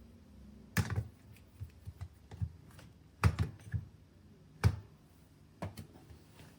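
A handful of sharp clicks and light knocks, spaced about a second apart, from metal espresso tools and the portafilter being handled and set down while the coffee puck is prepared.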